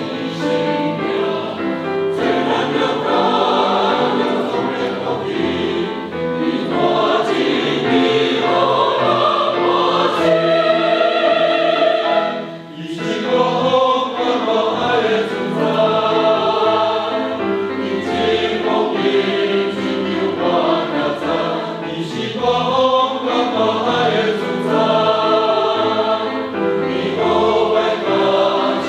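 Church choir singing a hymn in sustained, many-voiced lines, with a brief break between phrases a little before halfway.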